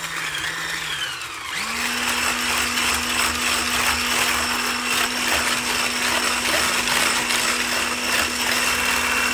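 Electric stick blender with a whisk attachment running steadily as it beats eggs and sugar in a plastic bowl. About a second and a half in, the motor slows and drops away, then comes back up and runs steady at a higher pitch.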